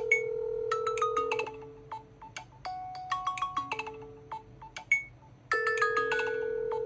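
Smartphone ringing with a bright, marimba-like melody of quick struck notes over a held low note, the phrase starting over about five and a half seconds in.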